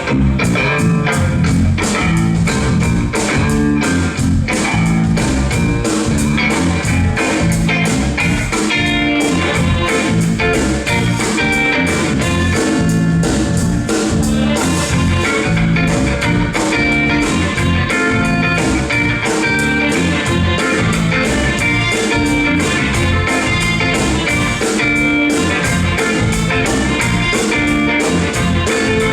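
Live blues-rock band playing: electric guitar over bass and drum kit with a steady beat.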